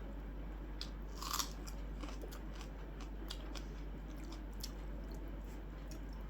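Close-up chewing and mouth sounds of a person eating, with scattered soft clicks and one sharper crunch about a second in.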